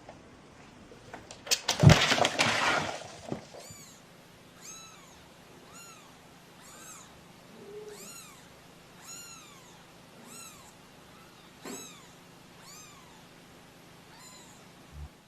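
A domestic cat meowing over and over, about nine short arched meows a little over a second apart. Before the meowing, a sudden loud clatter of knocks and noise lasting about a second and a half.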